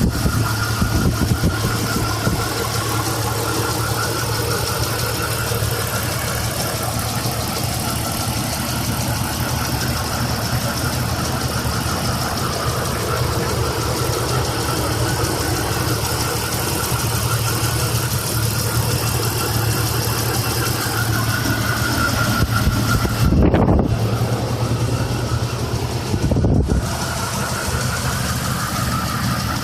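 Jeep Cherokee XJ's 4.0-litre straight-six idling with a fast, steady ticking from the engine, heard once it is warmed up, which the owner takes for valve noise. Twice near the end a brief louder low rumble rises over it.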